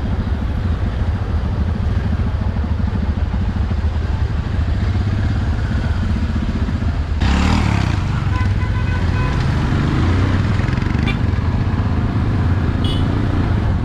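Motor vehicle running steadily with a low rumble of engine and road noise. About seven seconds in, a brief loud whoosh cuts in.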